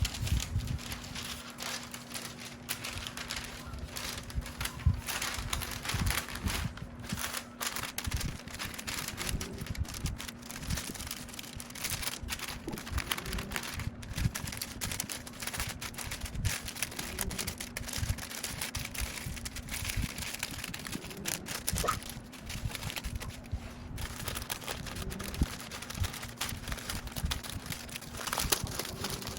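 Hands-on kitchen prep: continuous crinkling and rustling with many small clicks and knocks, over a steady low hum for the first several seconds.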